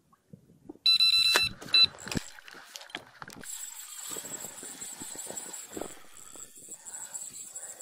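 Electronic hand scale beeping as it is switched on to weigh a carp: one loud half-second beep about a second in and a short second beep just after. Then rustling and handling noises with a thin, steady high-pitched tone under them.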